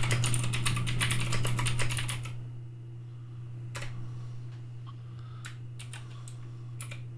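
Typing on a computer keyboard: a quick run of keystrokes for about the first two seconds, then a few single key taps spaced out over the rest.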